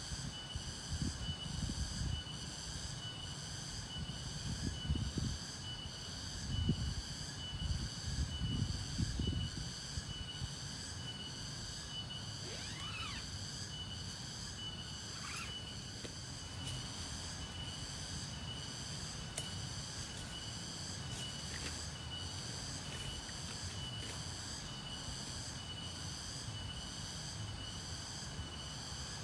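Night insect chorus: a high buzzing that pulses a little over once a second, over a steady thin high trill. An uneven low rumble runs through the first ten seconds or so, and two brief sliding calls come near the middle.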